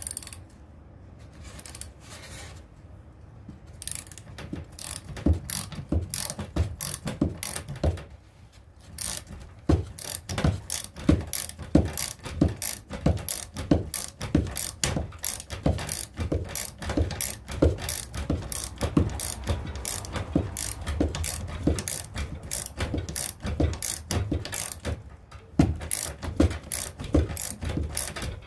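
Socket ratchet wrench clicking in steady repeated strokes as a bolt is driven into an unthreaded engine mounting hole, cutting its threads. The clicking stops briefly about eight seconds in, then carries on.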